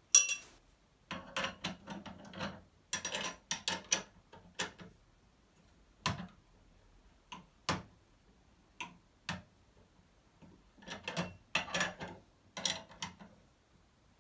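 Metal hand tools clicking and knocking while a bearing puller is worked on a moped engine's crankcase, to draw out a crankshaft bearing. The clicks come in irregular bursts with short pauses between them, and the sharpest knock is right at the start.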